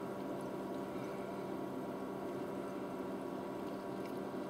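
Steady low hum of room tone with no distinct events.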